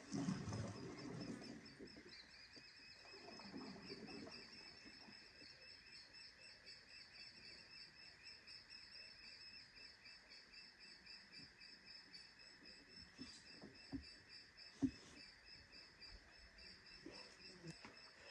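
Faint, steady chorus of high, rapid chirping from the riverside woods. A sharp knock comes about fifteen seconds in, just after a smaller one.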